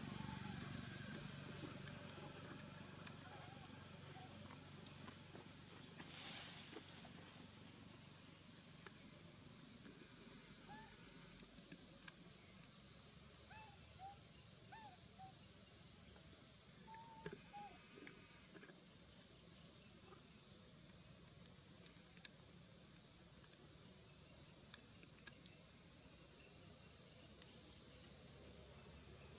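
Steady, high-pitched drone of insects, one unbroken shrill tone. A few faint short chirps come about halfway through.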